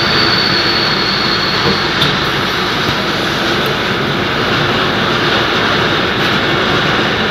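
Cheese-factory processing machinery and conveyors running: a loud, steady mechanical noise, with a faint high whine over roughly the first two seconds.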